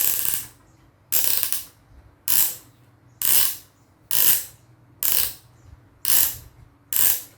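Toy crane's hand-cranked winch being wound up, a burst of mechanical ratcheting about once a second as the crank is turned in strokes, lifting the hook.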